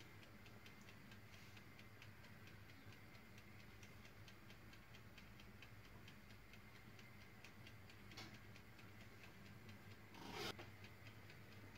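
Near silence with faint, rapid, even clockwork ticking, about three to four ticks a second, over a low steady hum; a brief soft rustle about ten seconds in.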